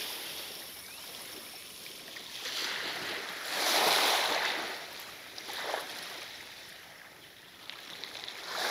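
Small waves washing onto the shore and draining back, swelling to a peak about halfway through and building again near the end.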